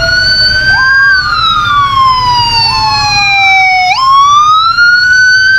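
Police car siren wailing: two tones sweeping slowly up and down, crossing each other, each rise or fall taking a few seconds.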